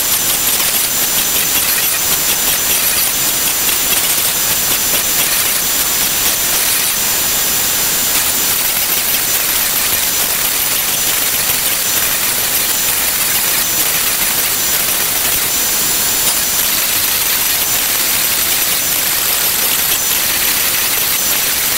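Shapeoko XXL CNC router cutting Baltic birch plywood, its palm-router spindle running steadily with the dust-collection hose drawing off the chips. A loud, even hiss with a steady high whine over it.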